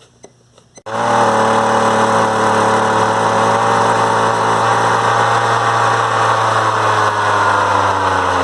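Poulan Pro PP333 string trimmer's two-stroke engine running steadily, back in running order after new fuel lines and a new fuel filter. A few faint clicks come first, then the engine comes in suddenly about a second in and holds a steady pitch.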